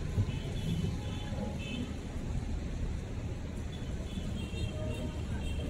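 Street traffic making a steady low rumble, with faint music in short high notes over it.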